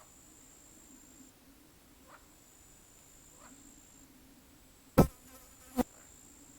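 A high, thin insect trill that breaks off and starts again, over faint outdoor background. About five seconds in, two loud sharp clicks come less than a second apart.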